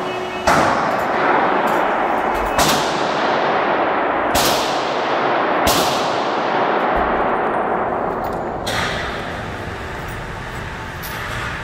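Gunshots from other shooters at an indoor shooting range: about five sharp reports at irregular intervals, each trailing off in a long echo from the concrete range bay.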